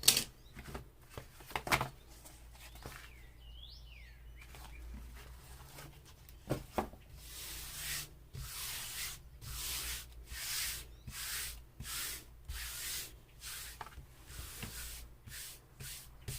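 Cardboard being cut: a few sharp clicks, then a run of rasping cutting strokes, about one a second, through the stiff puzzle-box board.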